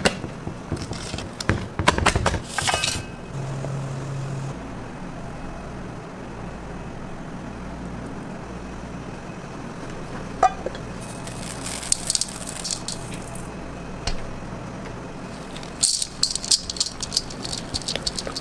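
A wire whisk rattling and clicking quickly against a stainless steel bowl, stopping about three seconds in. A low steady hum follows. Near the end, quick clicking and scraping of a utensil mixing batter in the metal bowl starts up again.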